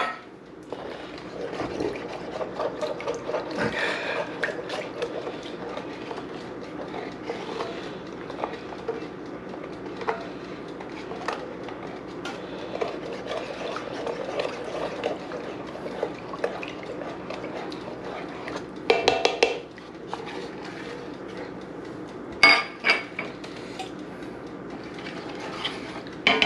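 A spoon stirring vegetable stock into a thickened roux sauce in a stainless steel sauté pan, with liquid sloshing and the spoon scraping and clicking against the pan. A few sharper clanks come near the end as the pan is shifted.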